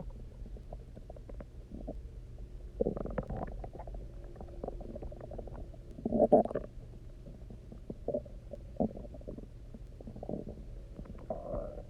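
An empty human stomach gurgling and rumbling after a day without food and a lot of water drunk: a string of irregular watery gurgles and small pops. The loudest gurgle comes about six seconds in, with others about three and eight seconds in.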